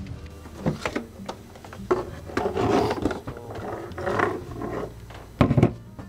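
A thermos and kitchenware being handled on a wooden counter: light clicks and knocks, a scraping rub through the middle, and a heavy double knock near the end.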